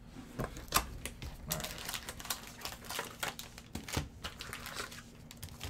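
A cardboard Panini Spectra football card box being opened and its foil-wrapped packs handled: irregular taps and clicks of cardboard with crinkling of the foil pack wrappers.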